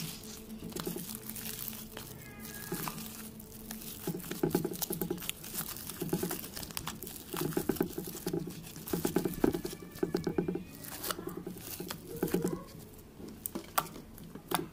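Sticky shampoo slime being kneaded and squeezed by hand in a plastic bowl: bursts of rapid crackling and popping, roughly once a second.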